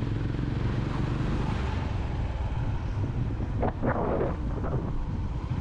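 Motorcycle engine running steadily under way, with wind buffeting the microphone and a brief louder rush of wind noise about four seconds in.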